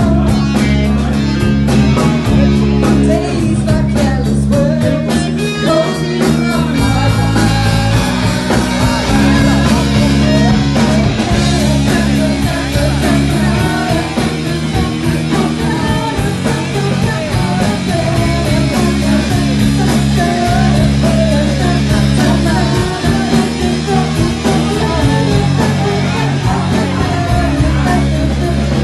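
A live band playing a rock song: a woman singing into a microphone over electric guitar, bass and a drum kit.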